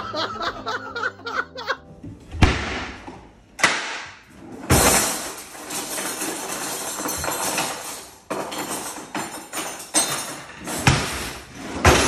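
A kitchen drawer being roughly rummaged through: plastic containers and utensils clattering and rattling, with several sharp knocks from the drawer and its contents. It is loudest in a long clatter in the middle, with more knocks near the end as the drawer is hauled out.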